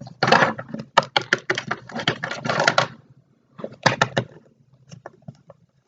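Plastic Littlest Pet Shop toy figures tapped and clattered on a hard surface as they are moved about. A dense run of clicks lasts about three seconds, then comes a short burst and a few scattered taps.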